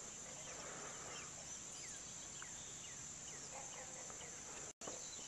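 Outdoor ambience at a lakeside at first light: a steady high-pitched insect chorus, with a run of short falling chirps about twice a second in the middle. The sound drops out for an instant near the end.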